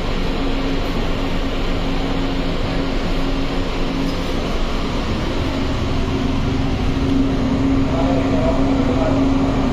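Interior of a Pune Metro train car pulling away from a station: a steady rumble with a constant low hum, growing a little louder in the last few seconds as the train gathers speed.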